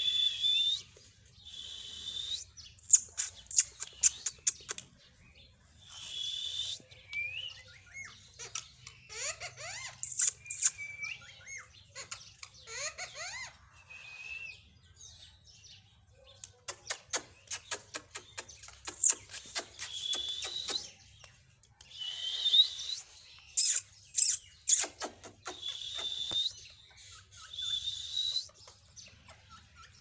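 Rose-ringed parakeet giving repeated harsh screeches, with bursts of rapid clicks and a few short gliding, whistle-like calls in between.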